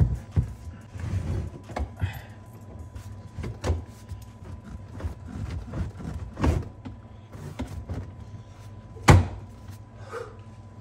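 Scattered knocks and clunks from handling the bare Mazda RX-7 FD body and its fittings, about five in all, the loudest a single thud about nine seconds in.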